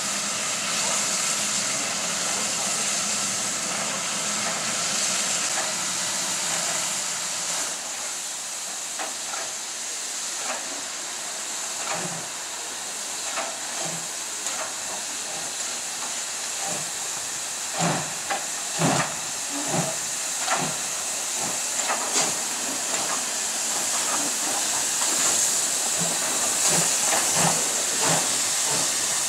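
Two coupled steam locomotives hissing steam steadily as they move slowly past, with irregular exhaust chuffs starting about a third of the way in and loudest about two-thirds through.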